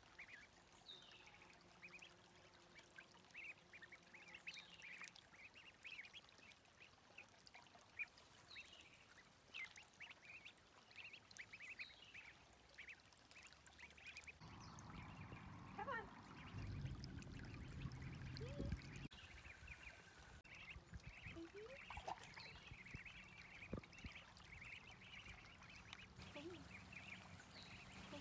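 Ducklings peeping: many short, high cheeps, soft and repeated. About halfway through, a low rumbling noise rises for a few seconds.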